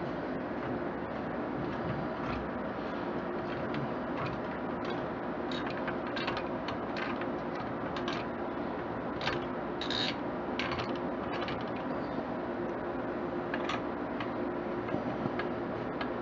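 A screwdriver driving a heatsink's mounting screws down into a motherboard, giving scattered small clicks and scrapes, most of them in the middle of the stretch. A steady hum runs underneath.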